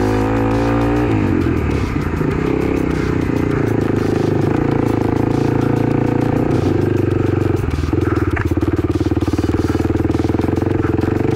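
Kawasaki KLX300's single-cylinder four-stroke engine running under way, its pitch rising over the first second as it picks up revs, then holding steady, with a brief dip in revs about eight seconds in before pulling again.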